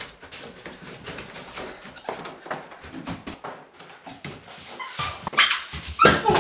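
Quick footsteps in socks coming down carpeted stairs and across a wooden floor, a string of soft knocks and scuffs, with the loudest thumps and scrapes about five to six seconds in.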